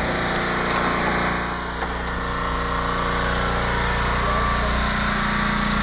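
A small engine running steadily at an even, idling speed.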